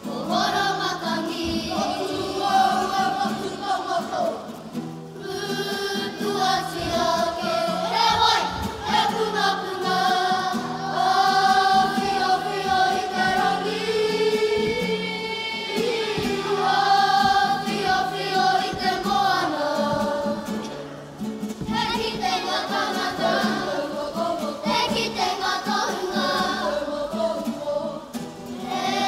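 A kapa haka group of school children singing a Māori song together in chorus, with brief breaks between phrases about 5 and 21 seconds in.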